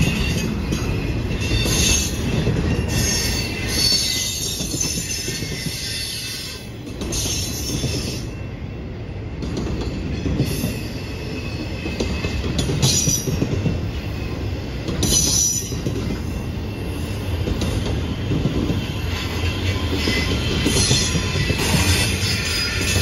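Freight train of container-carrying flatcars rolling past: a steady rumble of steel wheels on rail, with short high-pitched wheel squeals every few seconds.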